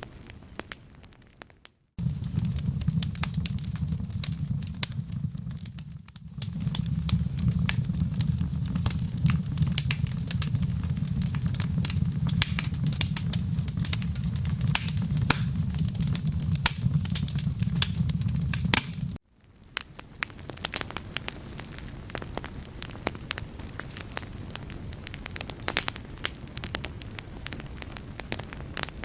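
Wood fire crackling with many sharp small pops. A loud deep rumble joins about two seconds in, after a brief dropout to silence, and cuts off abruptly a little past the middle, leaving the crackling quieter on its own.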